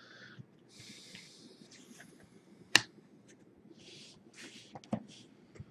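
Trading cards and foil pack wrappers being handled: soft rustling and sliding, with one sharp click a little under three seconds in and a lighter knock near the end.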